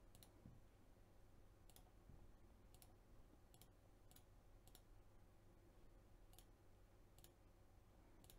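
Near silence broken by about a dozen faint, sharp computer mouse clicks at irregular intervals, one every half second to a second.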